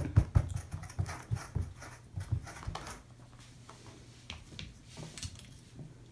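Fingernails scratching and tapping a corrugated cardboard cat scratcher pad: a quick run of short scratchy strokes over the first three seconds, then only a few faint taps.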